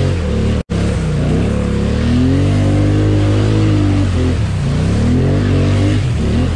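ATV engine revving hard through a mud hole, its pitch climbing and falling again and again as the throttle is worked, over the hiss and splash of churned mud and water. The sound cuts out for an instant just under a second in.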